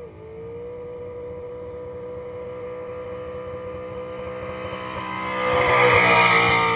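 Skid car's engine held at steady high revs while it spins its rear tyres in a burnout, growing louder as the car comes in and passes close about six seconds in, where the tyre noise joins it at its loudest.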